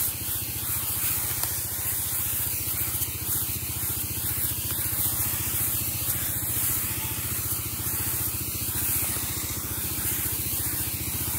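Hiss of a motorized power sprayer's nozzle spraying herbicide onto grass and weeds, steady throughout, over an even rapid low pulsing.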